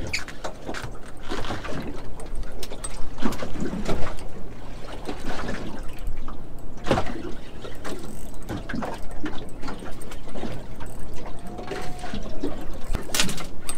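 Water sloshing against a small boat's hull, mixed with the irregular mechanical clicking of a spinning reel being wound while a fish pulls on a bent rod.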